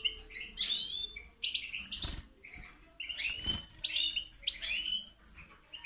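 Caged European goldfinches singing: phrases of quick high twittering chirps and fast sweeping notes, with short gaps between them. Two soft low thumps come about two and three and a half seconds in.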